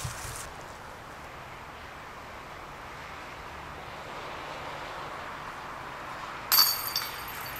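A putted golf disc strikes the chains of a disc golf basket near the end, a sudden loud metallic clash and jingle of chain ringing for about half a second. Before it, a steady hum of traffic on the road beside the course.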